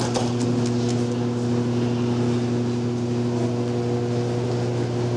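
Steady drone of a gym's ventilation air-handling units: a constant low hum with several higher steady tones above it, over a hiss of moving air.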